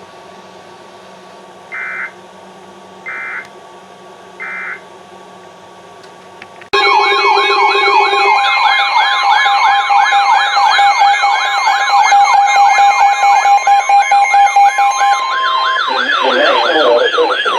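NOAA Weather Radio broadcast over a hissy channel, sending three short data bursts of its end-of-message code. About seven seconds in, several loud electronic sirens abruptly start yelping together, rapid overlapping rising-and-falling wails.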